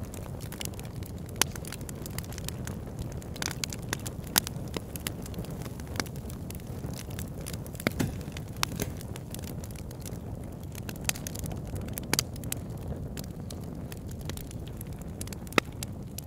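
Wood fire crackling in a fireplace: irregular sharp pops and snaps, a few of them louder, over a steady low rumble.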